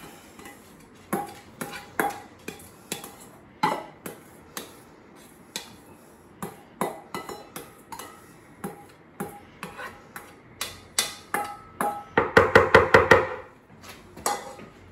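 Serving spoon scraping and tapping inside a stainless steel mixing bowl as chopped onion is scooped out: scattered clicks and scrapes, then near the end a quick run of ringing taps, several a second, knocking the last of the onion off.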